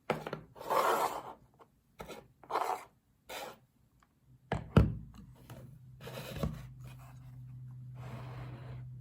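Handling noise of an RC car and tools on a workbench: short scrapes and rubs, then two sharp knocks about four and a half seconds in and another a couple of seconds later. A steady low hum runs under the second half.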